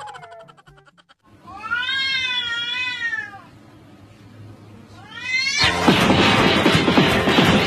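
Two domestic cats in a standoff: one gives a long, wavering yowl of about two seconds, and a second rising cry starts about five seconds in. Then comes a loud, harsh screeching scuffle as the cats break into a fight.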